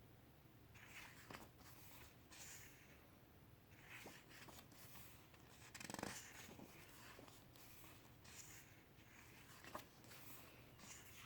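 Faint rustles of glossy paper pages being turned in a photo essay book, a soft brush every second or two, the strongest about six seconds in.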